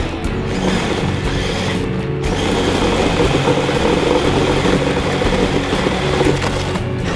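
Electric drive motor, gears and tracks of a remote-control snowcat running as it drives through snow, picked up close by a camera mounted on top of it.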